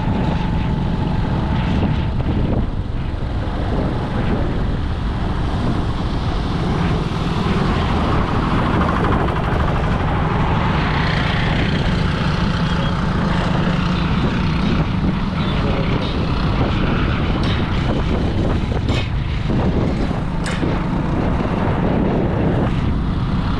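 Steady vehicle running noise, engine and road rumble heavy in the low end, with a few short knocks.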